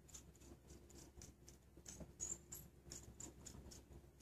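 Faint, irregular ticking and scratching from an Etch A Sketch as its two knobs are turned to draw lines on the screen.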